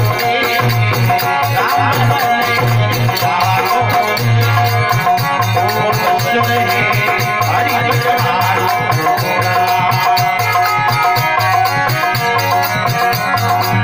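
Harmonium and dholak playing a Rajasthani folk bhajan: the harmonium holds steady chords over a regular drum beat, with an even high jingling rhythm on top.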